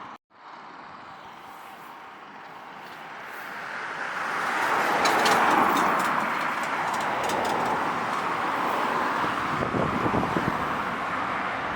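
Road traffic on a busy road: tyre and engine noise that swells about four seconds in as vehicles approach, then stays steady.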